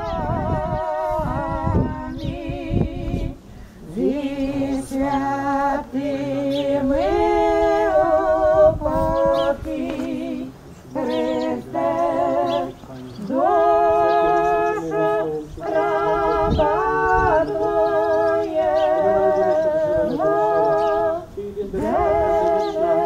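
Unaccompanied female voices singing slow phrases in harmony, with long held notes carrying a wide vibrato and short pauses between phrases.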